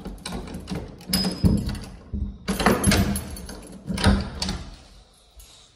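A door being closed and latched by hand: a handful of knocks and clunks from the door, its handle and lock, which die away near the end.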